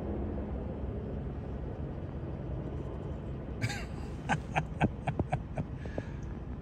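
Low, steady rumble of a distant HH-60 Pave Hawk (Black Hawk) helicopter flying away. About halfway through comes a quick run of sharp clicks and knocks from the phone being handled and swung.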